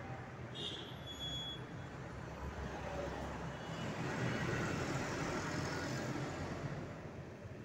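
Low rumble and hiss of a passing motor vehicle, swelling from about four seconds in and easing off near the end.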